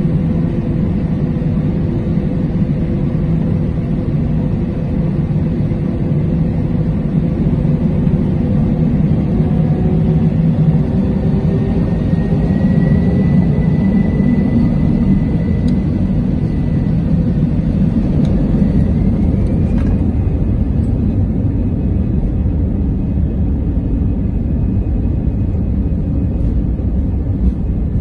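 Airbus A320 cabin noise heard from a window seat over the wing: a steady low rumble of the jet engines and the wheels on the runway. An engine whine rises in pitch about halfway through and again about two-thirds of the way in, then holds, as the engines spool up for the take-off roll.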